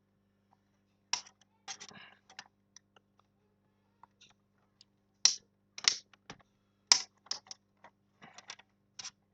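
Irregular sharp plastic clicks and taps, some single and some in quick little clusters, from a Dell laptop being handled and worked on. A faint steady low hum runs underneath.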